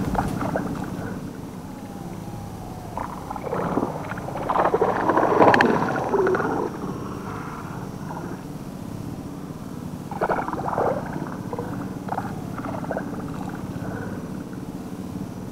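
Snakehead splashing and swirling at the water's surface where it strikes at the lure, in irregular bursts over a steady low hum.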